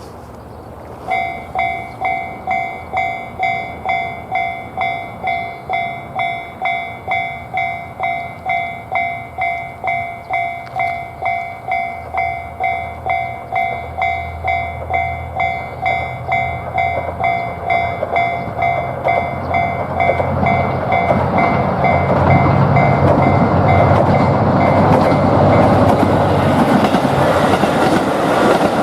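Japanese railway level-crossing alarm ringing its kan-kan, a bit under two strikes a second, starting about a second in. A train approaches and rumbles past over the second half, growing louder and drowning the bell near the end.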